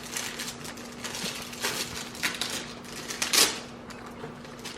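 Crinkling and crackling of chocolate bar wrappers being handled and peeled, in scattered bursts with the sharpest crackle about three and a half seconds in.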